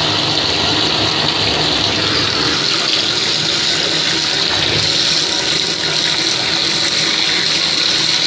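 Bathtub faucet running, a steady stream of water pouring into the tub.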